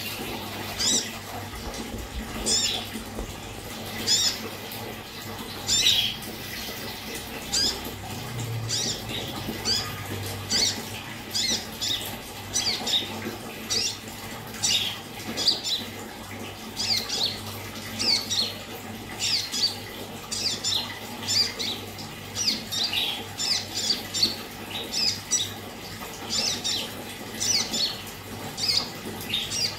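Konin (kapas tembak) songbird calling in full voice: short, sharp, high chattering notes repeated about once or twice a second, over a faint low hum.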